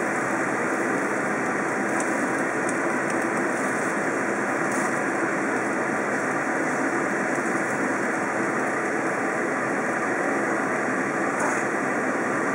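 Steady, even rushing noise from the stove while rice cakes and greens stir-fry in a wok, with a few faint scrapes of a wooden spatula.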